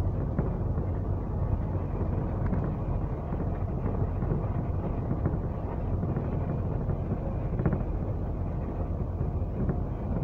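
Double-decker bus on the move, heard from inside: a steady low rumble of engine and road noise with a few faint knocks.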